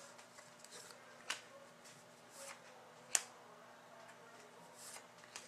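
Hockey trading cards handled and slid through the fingers: faint card slides with two sharp clicks, one a little over a second in and one about three seconds in.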